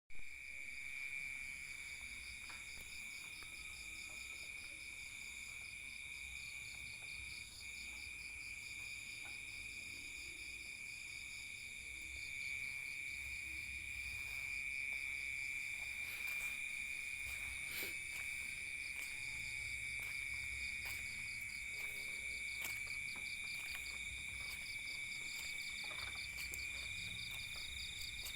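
A chorus of calling insects, several overlapping steady high-pitched trills, one of them rapidly pulsing, going on without a break.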